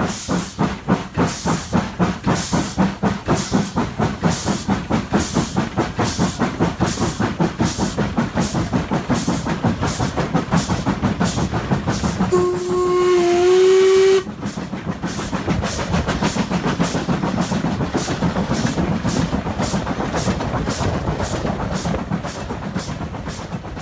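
A1 Pacific steam locomotive 60163 Tornado working under steam, its three-cylinder exhaust beating in a quickening rhythm as it gathers speed. About halfway through it sounds its whistle for nearly two seconds, and the whistle rises slightly at the end before it cuts off.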